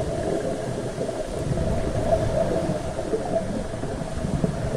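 Underwater ambient noise heard from below the surface: a muffled, steady low rumble and hiss with a faint steady hum.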